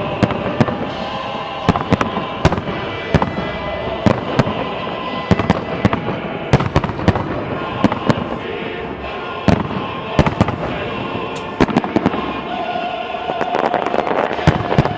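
Fireworks going off: many sharp bangs at irregular intervals over a continuous crackle and rumble, with music underneath.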